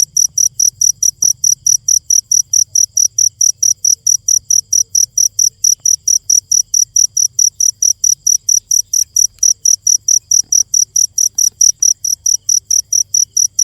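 A cricket chirping in an even, unbroken train of short, high-pitched chirps, about five a second.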